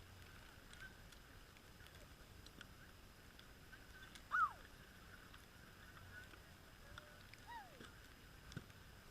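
A bird giving two short falling whistled calls, a louder one about four seconds in and a fainter one near the end, with a small click just after.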